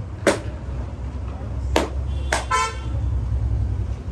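Steady low rumble of street traffic, with a short vehicle horn toot about two and a half seconds in. Several sharp smacks stand out above it, the loudest near the start and just under two seconds in.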